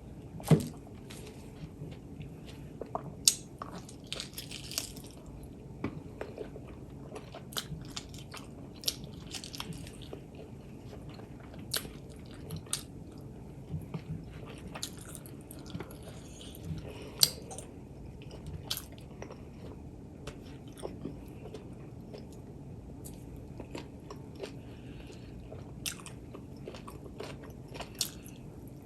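A person chewing and biting food close to the microphone, with scattered sharp clicks and mouth smacks throughout. A few clicks stand out louder, near the start and just past the middle.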